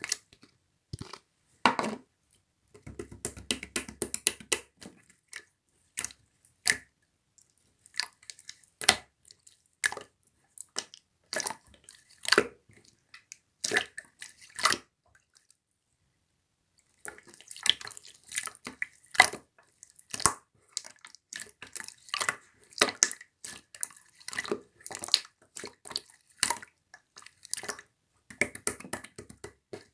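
Slime being squeezed and pressed by hand, making an irregular string of sharp wet clicks and pops, with a short pause just past the middle.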